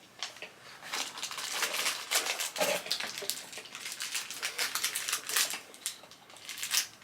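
Snack packaging rustling and crinkling as it is handled, with many irregular sharp crackles.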